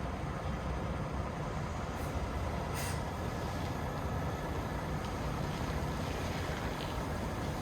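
A 2022 Peterbilt 389's diesel engine running steadily, with a short hiss about three seconds in.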